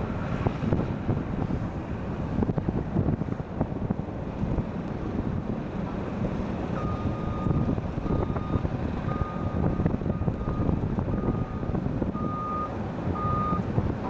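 Steady low rumble with wind on the microphone; about halfway in, a vehicle's reversing alarm starts beeping, a run of short electronic beeps at one pitch, and keeps on to near the end.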